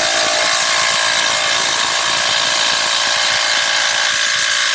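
Bosch cordless impact driver driving a large screw into timber under load, running continuously with a steady whine over fast rattling impacts.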